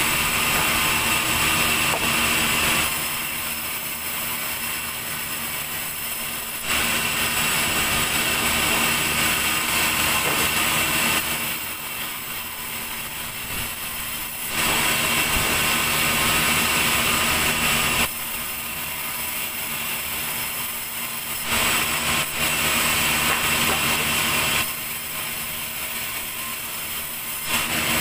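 Large vertical band saw cutting timber. A high-pitched cutting sound with the blade in the wood alternates with a quieter sound of the blade running free. The loud cutting comes in about four stretches of a few seconds each.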